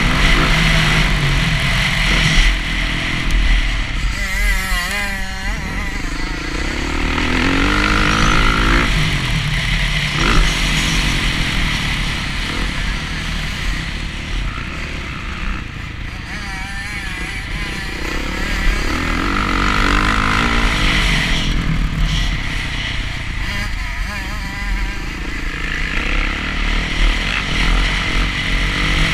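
Dirt bike engine revving hard and easing off as it is ridden around a motocross track, its pitch rising and falling several times. Heavy rumbling rush on the onboard microphone runs under the engine.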